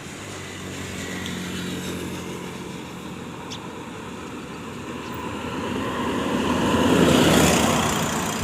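Road traffic: a motor vehicle's engine running, then a vehicle passing close, growing louder to a peak about seven seconds in and then fading away.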